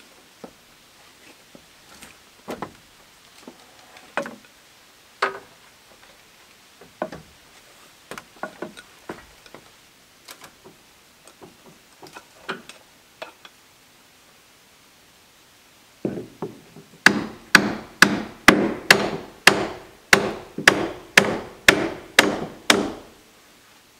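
Hammer driving nails into wooden trim boards. Scattered light knocks and taps come first, then about two-thirds of the way in a steady run of about fifteen hammer blows, two or three a second, each with a short ring. This run is the loudest part.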